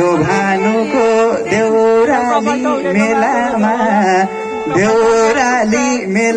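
Nepali lok dohori folk music performed live: a melody, sung or played, over instrumental accompaniment, with continuous wavering, bending notes.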